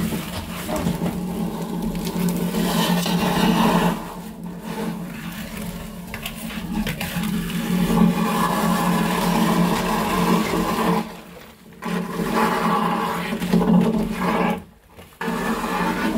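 Vacuum suction hose drawing sludge out of a septic tank through a hole dug in the floor: a steady rush of suction with a low hum, dropping off briefly twice in the last third.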